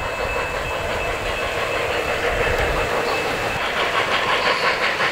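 O-scale 3-rail model steam train running on the layout track: a steady running noise, then from about three and a half seconds in a regular beat of roughly three strokes a second that grows louder as the second locomotive comes past.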